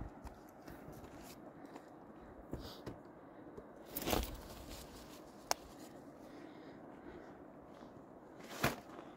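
A few scattered footsteps and knocks on rocky, gravelly ground, the loudest about four seconds in and near the end, over a faint steady hiss.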